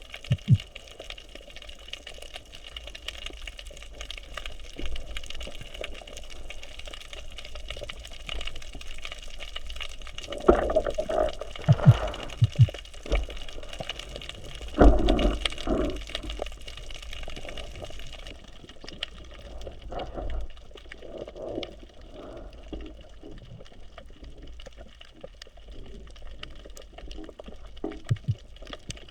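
Water sloshing and splashing, with louder bursts of splashing about a third and halfway through.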